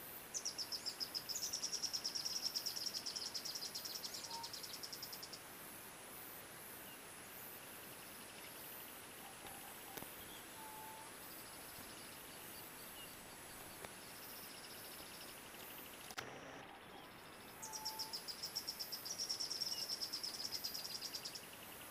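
Insect trilling outdoors: a high, rapidly pulsed buzz in two long spells, one for the first five seconds and another in the last four, over a steady high hiss. A few faint short whistled notes come in between.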